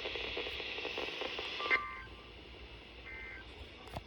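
Weather radio hiss that drops away about two seconds in, then two short warbling two-tone data bursts, a second or so apart: the EAS end-of-message code sent after a warning.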